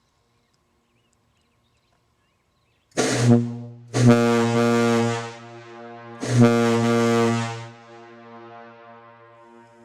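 Doran Cunningham 6-B brass ship's air horn, with a 12-inch diaphragm, sounding three blasts about three seconds in: a short one, then two longer ones. It is a deep, loud tone with a rich stack of overtones, and a faint tone lingers after the last blast.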